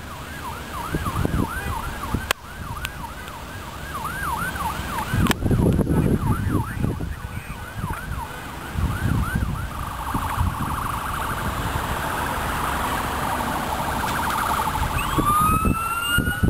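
Emergency vehicle siren on yelp, rapid up-and-down sweeps about three a second, changing around ten seconds in to a busier warble and then a rising wail near the end, over a low rumble.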